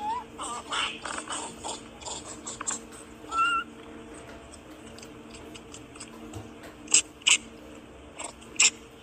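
Rhesus macaques: a short rising squeak at the start and another about three and a half seconds in, scattered light clicks, then three sharp short bursts in the last two seconds. A faint steady hum sits beneath.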